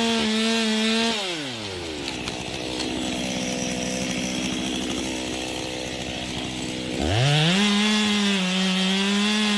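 Gas chainsaw engine at full throttle. It drops to a low idle for several seconds, then revs back up to full throttle and holds before easing off again.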